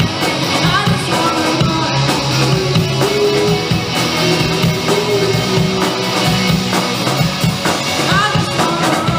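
Live rock band playing: electric guitars, bass guitar and drum kit together in a steady, loud groove.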